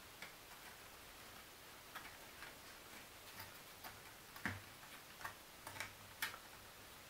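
Faint, irregular small clicks and taps of thin laser-cut wood pieces being handled and pressed into a wooden model frame. The loudest clicks come about four and a half and six seconds in.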